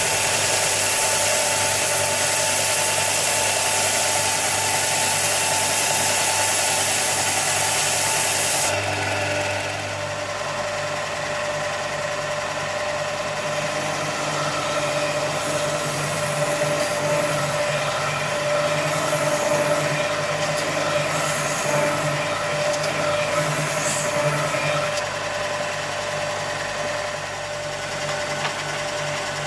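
Benchtop belt and disc sander with a 450 watt induction motor running with a steady hum, wood being sanded on it. The scratchy sanding hiss is loud for the first nine seconds or so, then stops sharply, and comes back lighter and on and off later.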